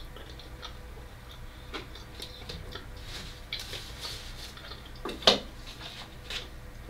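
Close-miked eating sounds: small scattered clicks and crackles of chewing pizza and handling the crust, with one sharp click about five seconds in, the loudest sound.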